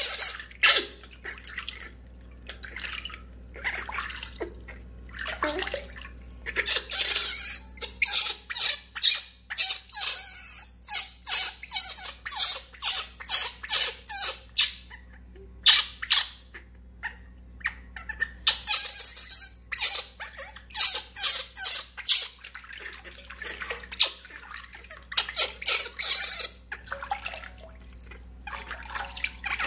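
Water splashing in a steel basin as a hand washes a baby monkey: quick, repeated splashes, about two a second, in two long runs with a short pause between them.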